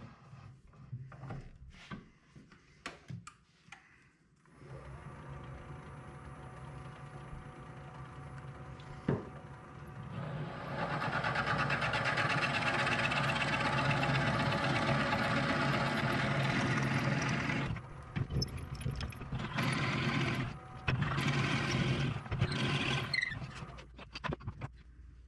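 Wood lathe spinning a cast epoxy duck-call blank while a 5/8-inch twist drill bit in the tailstock chuck bores into it: a steady motor hum starts a few seconds in, a louder drilling noise runs for about seven seconds, then comes in several shorter bursts before the lathe stops near the end. A few knocks and clicks of handling come first.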